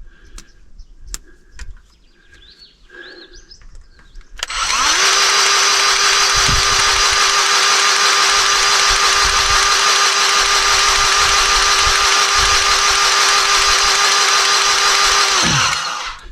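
Battery-powered grease gun motor running steadily for about 11 seconds, pumping grease into a fitting on an excavator. It winds up quickly about four seconds in and winds down near the end. Before it starts there are only a few faint clicks.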